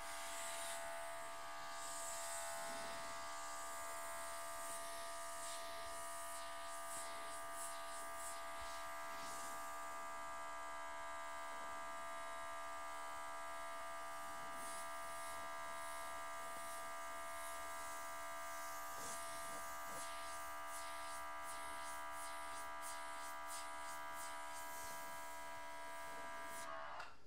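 Small cordless battery-powered airbrush compressor running with a steady high-pitched electric whine, while the airbrush hisses on and off as its trigger is worked. The motor whine cuts off at the very end.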